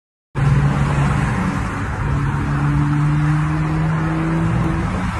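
Road and engine noise heard from inside a moving car: a steady rush with a low engine hum that edges slightly up in pitch.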